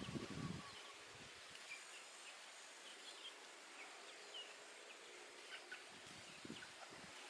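Faint outdoor hiss with scattered short, high bird chirps every second or so. Low wind gusts buffet the microphone at the start and again near the end.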